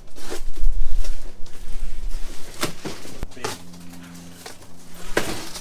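Large, heavy cardboard box being tipped over and laid flat on a table. Rumbling cardboard scraping and handling at first, then a few sharp knocks as it settles.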